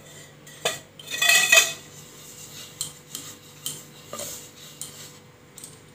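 Steel plate being handled in a kitchen: a sharp clink, then a louder metallic scrape and clatter with a brief ring about a second in, followed by a few light taps and clicks as thin rolled dough rounds are moved about.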